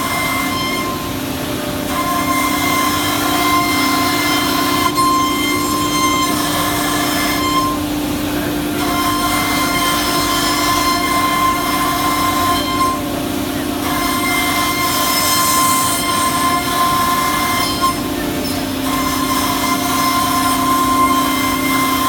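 CNC router running, with a steady spindle whine and a higher whine over it that starts and stops every few seconds.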